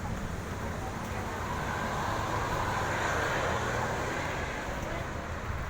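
A road vehicle driving past: engine rumble and tyre noise swell to a peak about three seconds in, then fade.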